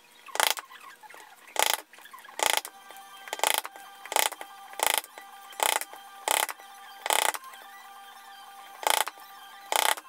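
A pointed hand awl working into the edge of a leather knife sheath, making short, sharp strokes about one a second, eleven in all, with a longer pause near the end.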